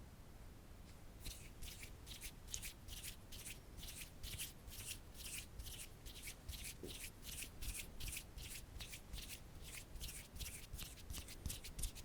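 Quiet ASMR trigger sound: short scratchy strokes repeated evenly about three to four times a second, starting about a second in and quickening near the end.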